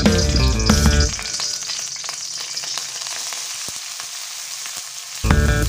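Raw beef strips frying in hot oil in a wok, a steady sizzle. Background music plays for about the first second and comes back in near the end.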